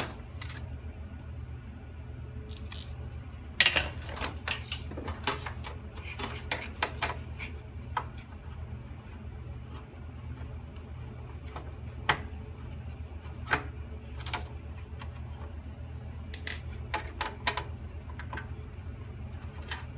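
Scattered clicks, taps and light clatter of hands and tools working on the parts of a desktop computer being taken apart, with a sharp click about four seconds in and a few more near the middle, over a steady low hum.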